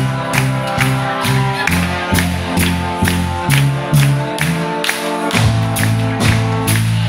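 Live brass band playing: sousaphone bass line under trombones and horns, over a steady drum beat of about two strokes a second. The bass notes drop out briefly about five seconds in, then come back.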